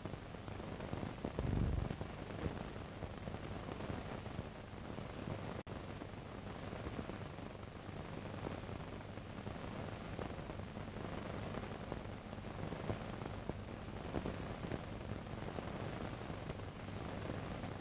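Steady hiss of an old recording's noise floor with a low hum under it, no other sound. A brief low thump comes about 1.5 s in, and the sound drops out for an instant near 6 s.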